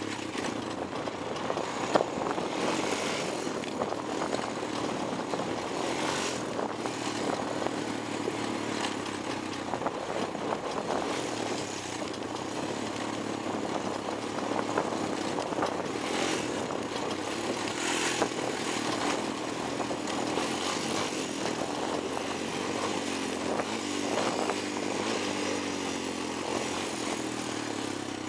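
Honda 250EX ATV's single-cylinder four-stroke engine running steadily under way on a dirt trail, with a few brief knocks and rattles, the sharpest about two seconds in.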